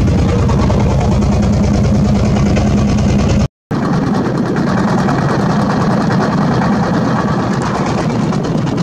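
Engine of a motorized river boat running steadily under way. It cuts out for a moment about three and a half seconds in and comes back with less of its deep low rumble.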